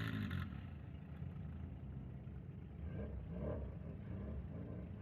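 Car engine running with a low, steady rumble; faint voices come in briefly about three seconds in.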